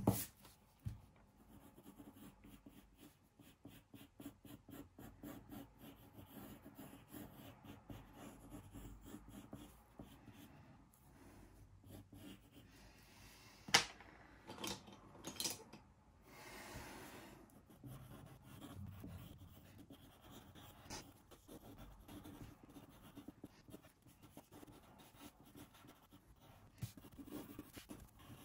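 Pencil sketching on paper: quick, scratchy strokes in short runs, with a couple of sharp taps about halfway through.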